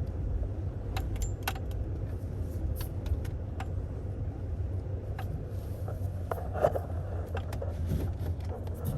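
A vehicle engine running at a steady low rumble, with scattered clicks and rattles of loose parts over it.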